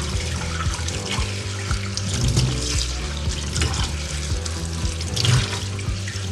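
Kitchen tap running into a plastic bowl of water spinach in a stainless steel sink, with water splashing as hands rinse and lift the leaves.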